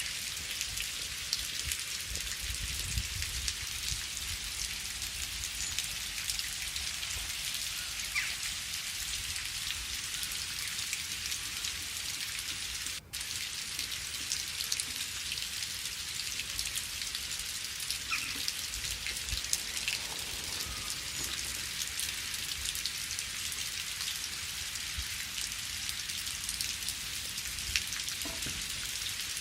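Steady rain falling, a dense even hiss sprinkled with individual drop ticks. The sound drops out for a split second about halfway through.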